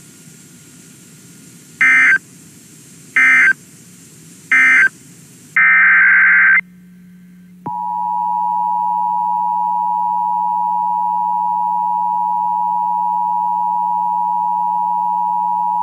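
Emergency Alert System signalling on NOAA Weather Radio. Three short bursts of SAME digital data mark the end of one warning, then a longer data burst opens the next. About eight seconds in, the steady single-pitch warning alarm tone starts and holds, with a faint low hum beneath.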